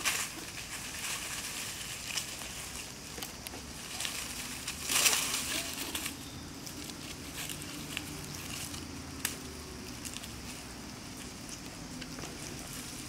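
Dry leaf litter crackling and rustling as monkeys move and scuffle over it, with scattered sharp clicks and a louder rustle about five seconds in.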